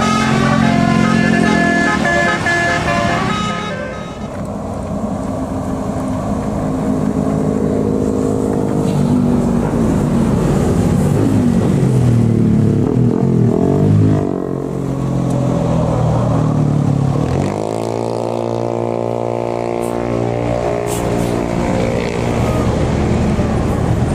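A bus's telolet musical horn playing a stepped tune for the first few seconds, then bus and road traffic passing, with engine notes gliding up and down; a little past the middle a heavy engine revs up and holds its pitch.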